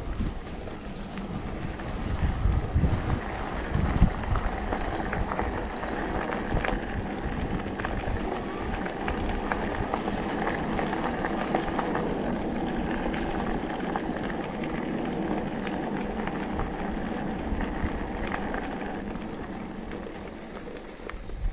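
Electric mountain bike rolling along a dirt forest track: steady tyre rumble and rattle from the bike, with heavy jolts over bumps a few seconds in.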